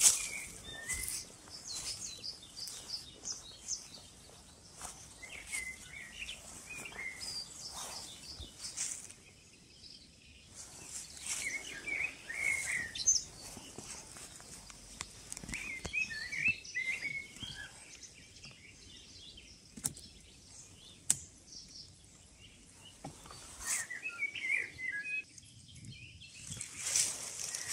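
Small songbirds chirping and singing in short bursts every few seconds, with scattered rustles and light thuds from footsteps through grass.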